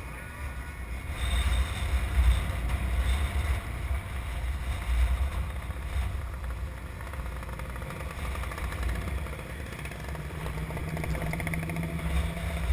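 A column of motorcycles riding slowly past, their engines running over a heavy low rumble; near the end one bike's engine note holds steady as it passes close by.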